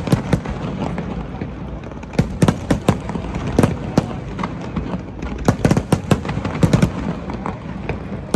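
Fireworks display: a rapid, irregular barrage of sharp bangs and crackles in clusters, over a steady background hubbub.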